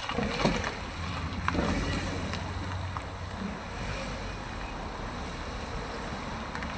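A vehicle climbing uphill: a steady low engine and road rumble with a few faint knocks, with wind buffeting the microphone.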